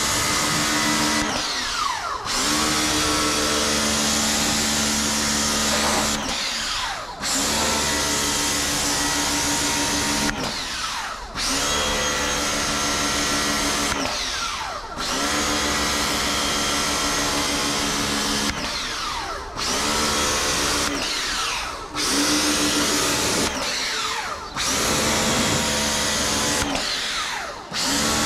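Ingco 1400W electric pressure washer running with the hiss of its water jet on a car body. About eight times the motor stops for a second or so, its pitch sliding down, then starts again, as happens when the lance trigger is released and squeezed again.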